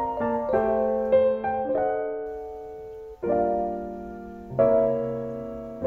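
Background piano music: struck notes and chords that ring and fade, with a brief break and a new chord about three seconds in.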